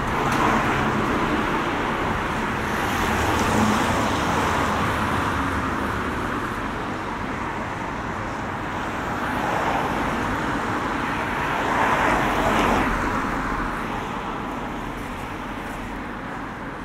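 Cars driving past on a wet road, their tyres hissing on the wet surface. The sound swells and fades several times as each car goes by, over steady street traffic, with the loudest pass about twelve seconds in.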